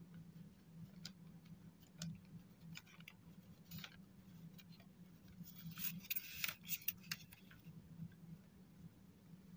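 Faint scratches and light taps of a pen writing on graph paper, then a short burst of rustling and scraping about six to seven seconds in as a plastic ruler is shifted across the paper, over a low steady hum.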